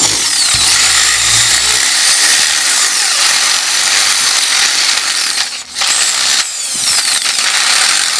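Electric drill boring a hole, running steadily at speed with two short breaks about two-thirds of the way through.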